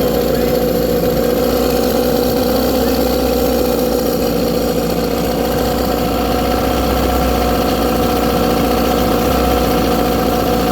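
A 1997 Tracker 40 hp outboard motor built by Mercury idling steadily, with no stumble or stall. This is the motor that its owner says dies after idling a while, as though it runs out of fuel.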